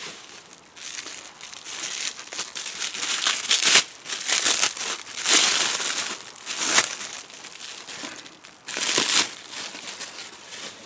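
Packaging crinkling and rustling in irregular bursts while a new BMW airbag module is handled.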